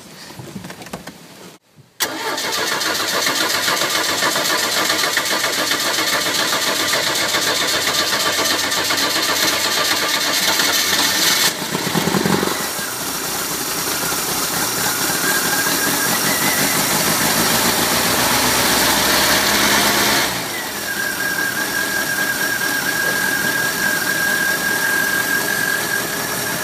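Bayliner boat's inboard engine, run on flushing muffs, starting and running steadily. It is test-running after its cracked block was patched with JB Weld. The running sound comes in abruptly about two seconds in and shifts twice, and a thin high whine runs through the second half.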